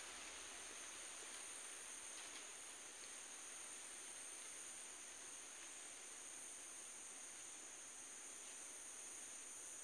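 Faint, steady, high-pitched drone of insects: two even high bands that hold without a break, over a soft outdoor hiss.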